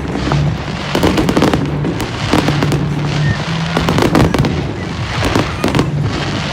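Display fireworks going off in rapid succession: many bangs close together, with crackling between them.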